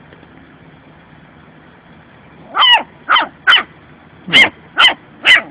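A young puppy barking, six high-pitched barks in two quick runs of three, starting about two and a half seconds in: mock-tough barking from a playful puppy.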